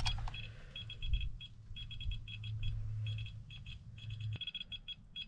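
Handheld Geiger-counter dosimeter chirping out short two-tone beeps at an irregular, random rate of several a second, quickening toward the end. Each beep is a detected particle, and the fast count shows elevated radiation from uranium-bearing mine-dump soil.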